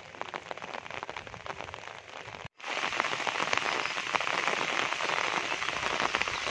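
Heavy rain falling, a steady hiss of countless drops. It drops out for a split second about two and a half seconds in and comes back louder.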